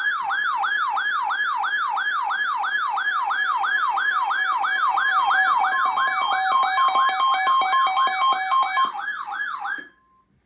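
A weather radio's alert sounding ahead of a severe thunderstorm warning: a siren-like tone sweeping up and down about three times a second. A few seconds before the end a steady tone near 1 kHz, likely the NOAA Weather Radio 1050 Hz warning alarm, joins it. The alert cuts off just before the end.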